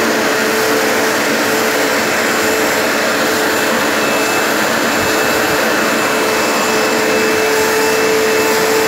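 Vacuum cleaner running steadily, its hose fitted with a grooming brush that sucks up loose fur as it is drawn through a Siberian husky's coat. A steady hum runs under the noise, and a faint high whistle joins about halfway through.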